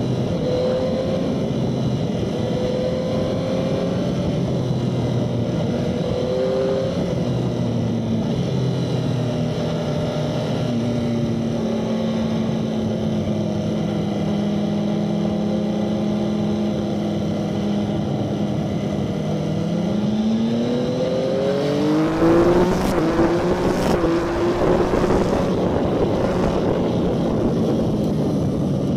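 Motorcycle engine heard onboard while riding, with wind rush. The engine holds fairly steady revs through the bends, then about 20 seconds in rises in pitch as the bike accelerates, with the wind growing louder and a couple of brief sharp noises just after.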